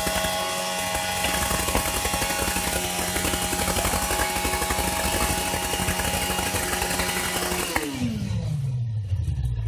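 Sportbike engine held at steady high revs during a burnout, the rear tyre spinning on the paving under a dense noisy hiss. About eight seconds in the throttle is let off and the revs fall away toward idle.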